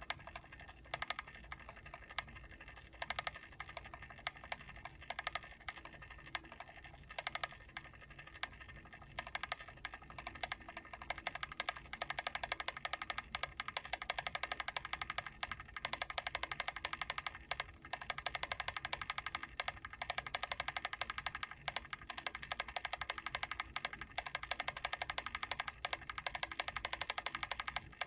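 Mechanical timer clicking rapidly: sharp, uneven clicks for the first twelve seconds or so, then a dense, continuous run of clicks.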